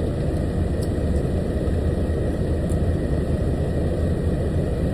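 Steady low rumble of a truck's engine running, heard from inside the cab.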